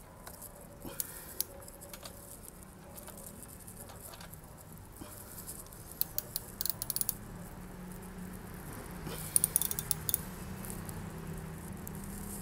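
Light metallic clicks and rattles from a hand tool tightening a bolt on a motorcycle's radiator guard. The clicks come in two quick clusters, about six and nine seconds in, over a low steady hum.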